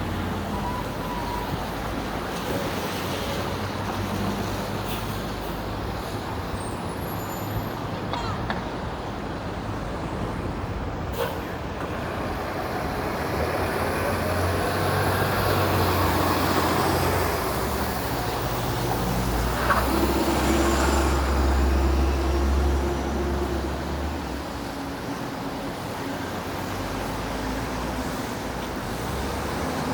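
City street traffic passing, with a heavy vehicle, such as a bus or truck, growing louder and rumbling deeply in the middle before fading.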